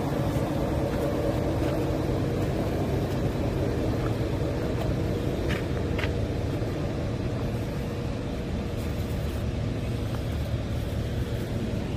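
2000 Hyundai 25-ton cargo truck's diesel engine idling with a steady low rumble.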